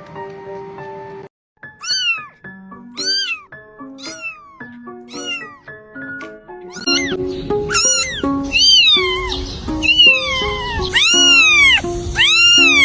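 Repeated cat meows, each rising then falling in pitch, about one a second at first, then coming faster and louder about seven seconds in, over background music.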